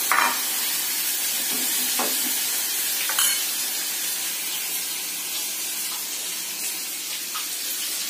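Salted dried fish frying in hot oil in a pan: a steady sizzle, with a few sharp clinks against the pan, the loudest just at the start and about three seconds in.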